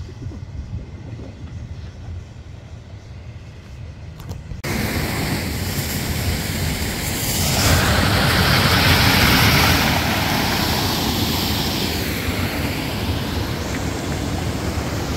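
Wind buffeting the microphone: a low rumble that jumps suddenly about four and a half seconds in to a much louder rushing hiss, which swells and then eases a little.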